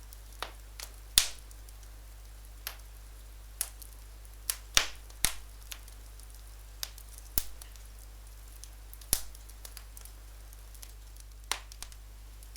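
Wood fire crackling: irregular sharp pops and snaps, a few much louder than the rest, over a steady low hum.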